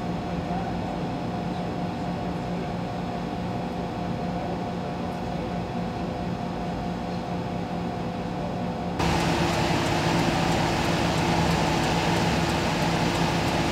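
Steady hum of idling vehicle engines, with a few held tones. About nine seconds in it jumps suddenly to a louder, hissier drone.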